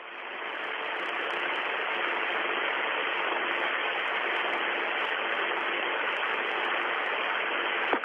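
Steady radio static hiss on an open communications channel, building up over the first second, with a faint steady hum underneath.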